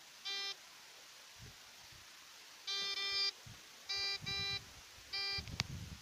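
Short buzzy electronic beeps from a handheld homemade wooden long-range locator: one beep near the start, a double beep about three seconds in, two beeps around four seconds and one more near the end. A sharp click follows the last beep, with some low handling rumble.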